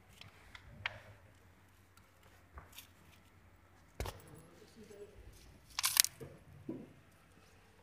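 Bubble wrap and plastic packaging crinkling as they are handled, in scattered short crackles and clicks, with a louder cluster of crackles about six seconds in.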